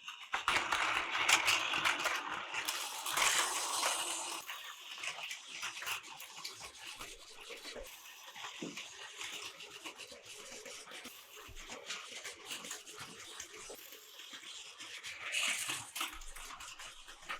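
Battery-powered Plarail toy train running on plastic track: a whirring motor with a stream of small rattling clicks from the wheels and track joints. Louder for the first few seconds, quieter in the middle, then swelling again near the end as it passes closer.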